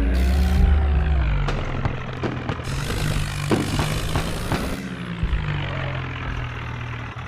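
Bulldozer's diesel engine running steadily, easing off a little after about two seconds, with a few sharp clanks.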